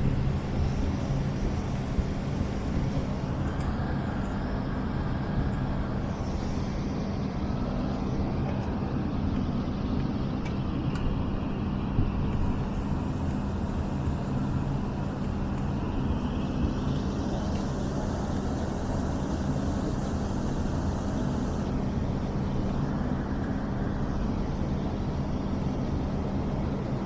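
Steady cabin drone of a jet airliner in flight: engine and rushing-air noise with a constant low hum.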